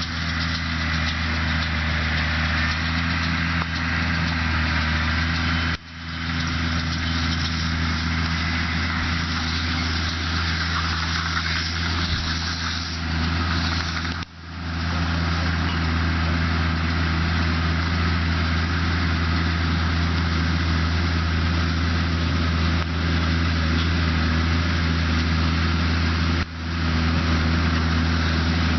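Case IH Maxxum 140 tractor engine running steadily, with a constant rushing noise over it. The sound drops out briefly three times: about six seconds in, about halfway, and near the end.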